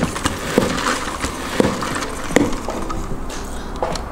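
MUJI resin spin mop being spun in the bucket's plastic spin basket: about six uneven plastic knocks, roughly one every half second to second, over a hiss of water flung off the spinning mop head.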